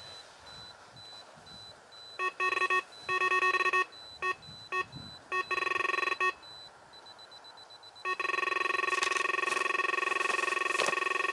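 Carp fishing bite alarm sounding: irregular stuttering bleeps from about two seconds in, then an unbroken steady tone from about eight seconds in, the sign of a fish taking line on a run.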